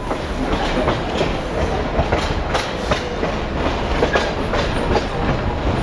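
Passenger train running along the track: a steady rumble of wheels on rails with irregular clicks and knocks from the wheels and cars.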